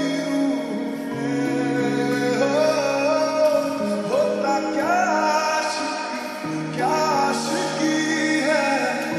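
Slow Bollywood lo-fi love song: a sung melody gliding over held bass notes and soft backing chords.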